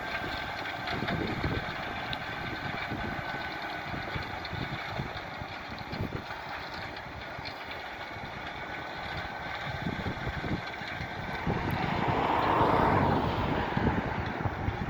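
Tractor engine running steadily under load while ploughing, heard from across the field, swelling louder near the end.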